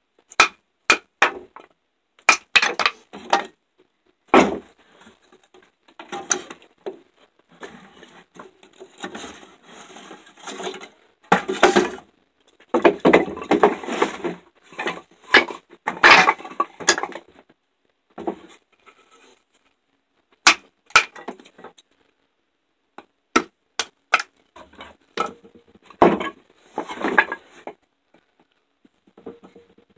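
Wooden baton knocking on the spine of an MTech full-tang fixed-blade knife, driving it down through a pine board: a long series of sharp knocks, some single and some in quick runs, with stretches of rough cracking as the blade splits the wood.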